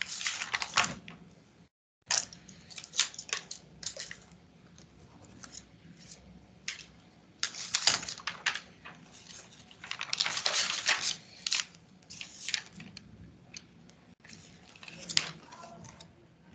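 Irregular clicks, taps and rustles of things being handled close to the microphone, busiest about eight seconds in and again around ten to eleven seconds, with the sound dropping out completely for a moment just before two seconds in.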